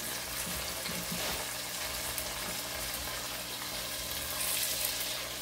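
Oil sizzling steadily in an open pot of popcorn kernels and Skittles heating on the stove. The hiss grows a little brighter about four and a half seconds in.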